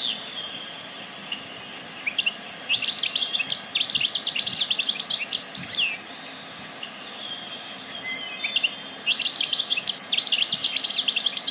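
Songbirds twittering in quick runs of rapid high chirps, one starting about two seconds in and another near the end, over a steady high-pitched hiss.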